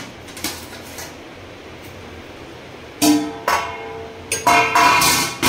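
Stainless-steel plates and bowls knocking together as they are picked up: a couple of light knocks, then from about three seconds in several sharp clanks, each leaving a ringing metallic tone.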